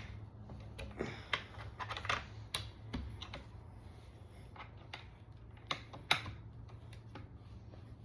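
Scattered light clicks and taps of bar-stool hardware being fitted and turned with a T-handle wrench, over a low steady hum.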